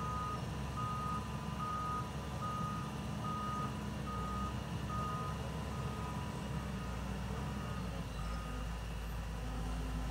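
Excavator's warning alarm beeping, one short beep about every 0.8 s, over its diesel engine running. The beeps fade out near the end while the engine grows louder.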